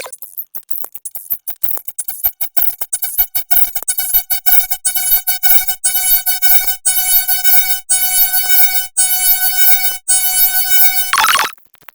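The 'drunk squirrel laughing' meme sound effect, stacked and sped up so many times that it has become a fast mechanical stutter that quickens over the first few seconds. It then settles into a steady, buzzing electronic-sounding tone broken by short dropouts about once a second, with a loud burst near the end.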